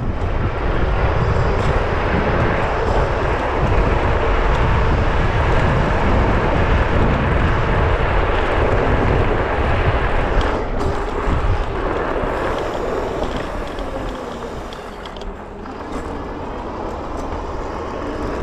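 Steady wind rush on the microphone with tyre and road noise from a Varla Pegasus electric scooter riding at high speed, easing somewhat near the end.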